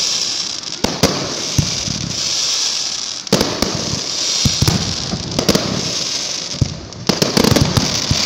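Fireworks going off: sharp bangs of shells bursting at irregular intervals over a continuous hiss, with a quick run of bangs near the end.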